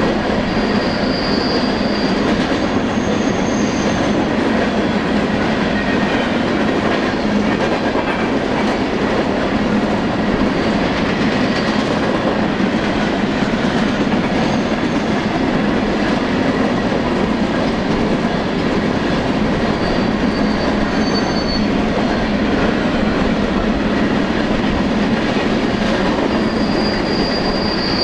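Freight train of covered hopper cars rolling past at close range: a steady, dense rumble and clatter of steel wheels on rail, with brief high-pitched wheel squeals now and then, including one near the end.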